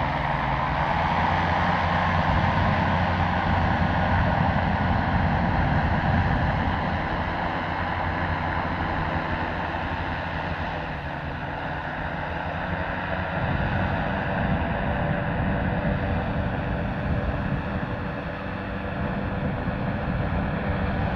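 Hot-air airship's engine-driven propeller droning steadily as the airship flies low past, with wind rumbling on the microphone.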